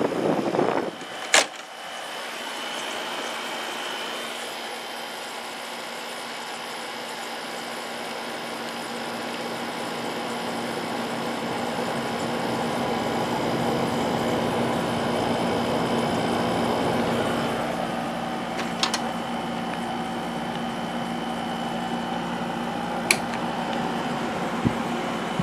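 Vintage Amana 6600 BTU window air conditioner (model 7P2MC) running: a steady fan whoosh with a constant hum. A sharp click comes about a second and a half in, and fainter clicks come later on.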